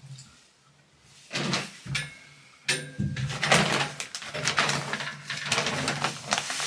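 A plastic bag of washing powder being handled and crinkled: a couple of brief rustles, then a sharp crackle a little under three seconds in and continuous crinkling.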